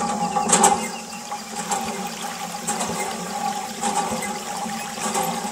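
A thin jet of water spraying from a small hose and splashing onto a toy car's body, a steady rushing with a low steady hum underneath.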